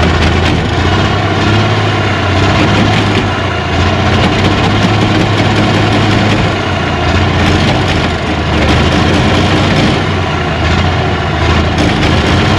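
Cummins 855 inline-six diesel engine running loud and steady, a deep even drone with no change in engine speed.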